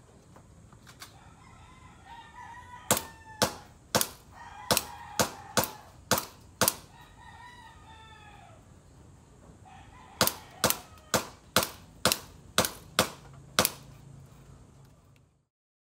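WE Hi-Capa 5.1 gas blowback airsoft pistol firing two strings of about eight sharp shots each, roughly two a second, with a pause of about three seconds between, at hanging metal disc targets. A rooster crows in the background between the shots.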